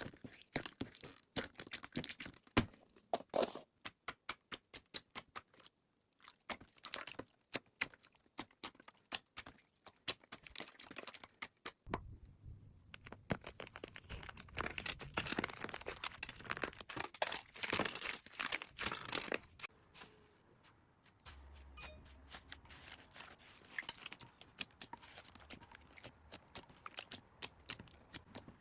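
Slime being squished, poked and stretched by hand: a string of sharp wet clicks and pops, with a dense spell of crackling about midway through.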